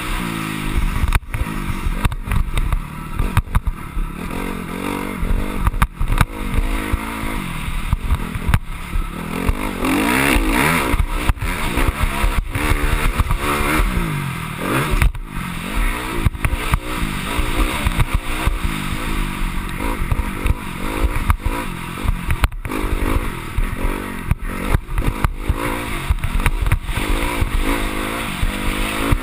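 Honda CRF250R's 250 cc four-stroke single-cylinder engine revving up and down again and again as the dirt bike is ridden hard around a motocross track, close to the microphone, with many short knocks and rattles from the rough ground.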